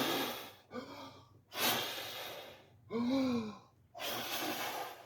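A man breathing hard in loud, heavy exhales about a second long each, with a short groan about three seconds in: the huffing and sighing of someone straining, worn out by a hard job.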